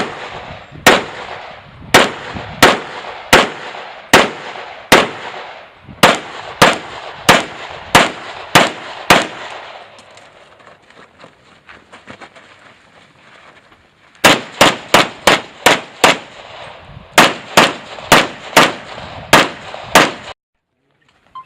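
Pistol fire in a practical pistol match stage: a string of about fourteen shots, roughly one every half to one second, then a pause of about five seconds, then a faster string of about seventeen shots, some in quick pairs. The sound cuts off abruptly near the end.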